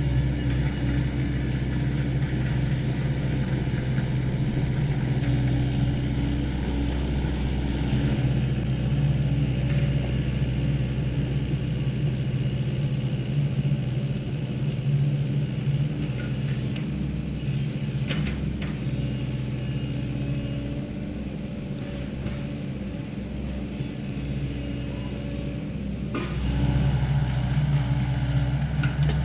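Sany SY75 excavator's diesel engine running steadily, easing off for a few seconds past the middle and picking up again near the end, with a few knocks.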